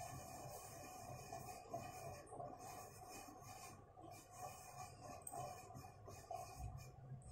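Faint, uneven rubbing and rasping from a cat in labour moving under a blanket, over a low steady hum.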